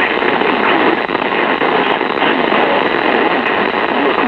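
Weather radio broadcast heard through heavy static: a steady, loud hiss with a muffled, unintelligible voice wavering beneath it, on a narrow, telephone-like band.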